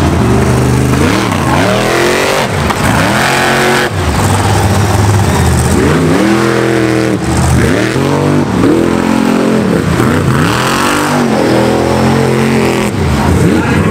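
Monster truck engine revving hard under load as the truck climbs over a row of junk cars and tears through the dirt. The pitch rises and drops back every second or two.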